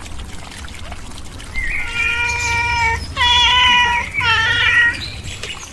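A domestic cat meowing three times in a row, each meow long and drawn out, about a second each.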